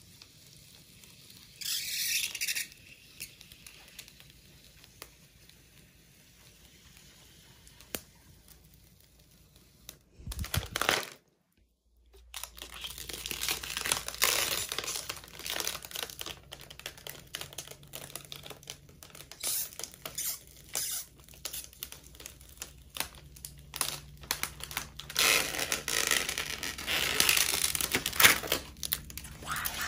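Clear protective plastic film being peeled off a vanity mirror's glass by hand, crinkling and rustling in irregular bursts, with a brief silent gap about eleven seconds in.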